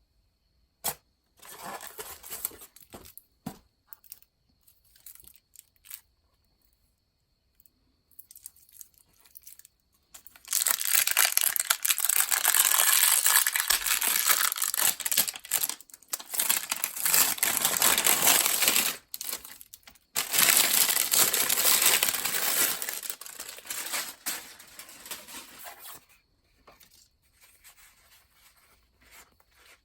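Fan packaging being handled and unwrapped: scattered rustles and knocks, then two long, loud stretches of tearing and crinkling in the middle, fading to faint handling near the end.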